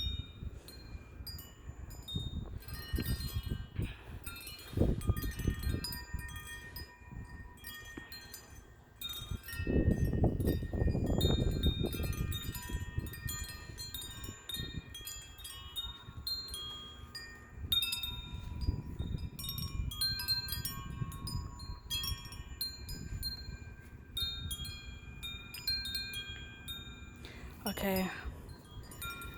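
Several wind chimes ringing without pause in strong, gusty wind, many tones overlapping. Wind gusts buffet the microphone with a low rumble, hardest about ten seconds in.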